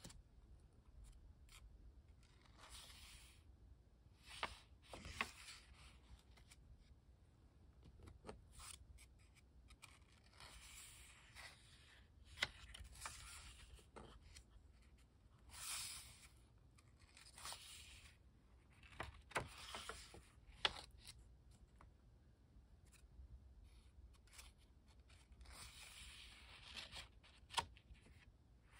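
Paper pages of a small Pentalic sketchbook being turned and smoothed by hand: short papery swishes and rustles every few seconds, with the odd sharp crackle.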